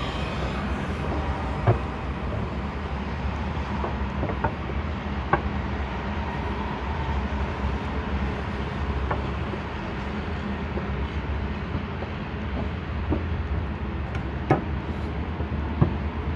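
Steady machine noise on the MRT track: a constant low hum under an even rush, with a few faint clicks scattered through it.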